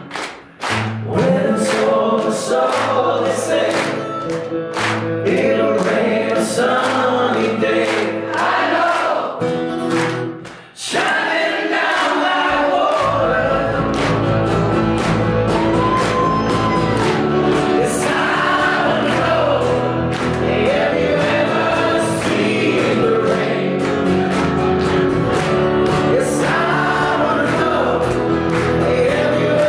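Live rock band playing: acoustic guitars and electric bass under several voices singing together, over a steady beat. The music drops briefly about eleven seconds in, then comes back fuller with a heavier bass.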